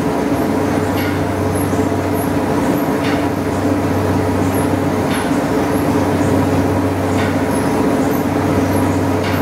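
Belt-driven rice mill machinery running: a loud, steady mechanical hum with several held tones, and a faint knock about every two seconds.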